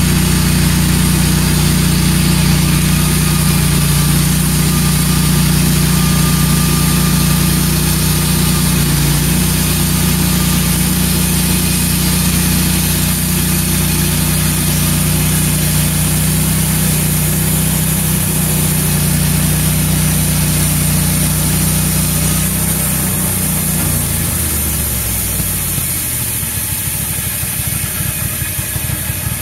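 Wood-Mizer LT15 bandsaw mill's gas engine running steadily under load as the band blade saws through an ash log. Over two-thirds of the way in the engine's pitch falls as it slows down, with the cut finished.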